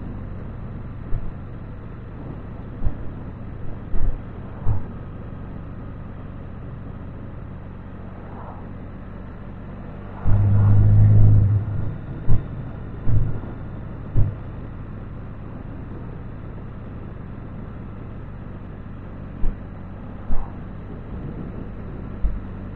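Can-Am Spyder three-wheeled motorcycle running steadily at cruising speed, its engine hum mixed with wind rumble on the microphone. Short thumps are scattered through, with a louder surge lasting about a second and a half about ten seconds in.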